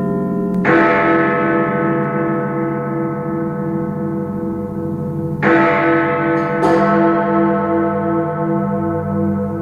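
Big Ben's clock-tower bells being struck: one strike about half a second in, then two more a little over a second apart past the middle. Each strike is left ringing long, with a slow pulsing in the hum.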